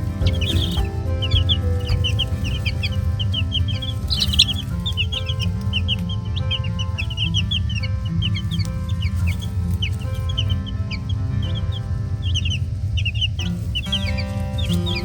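Baby chicks peeping: many short, high chirps overlapping. Background music with held chords plays throughout.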